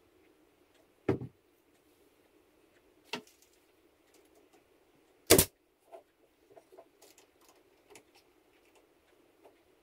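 Sharp knocks and small clicks of wooden pieces and tools being handled on a workbench, with one loud, sharp shot about five seconds in from a cordless brad nailer driving a nail into wood.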